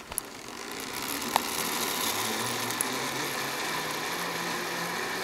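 Zip-line trolley pulleys rolling along a steel cable: a steady mechanical whirr that builds up within the first second and holds, with a sharp click about a second and a half in.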